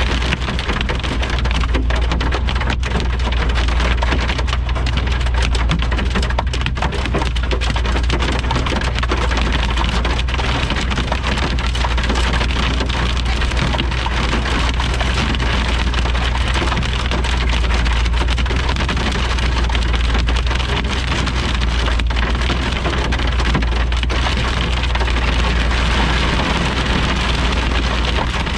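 Heavy thunderstorm rain falling hard and steadily, a dense patter of many small hits over a constant low rumble.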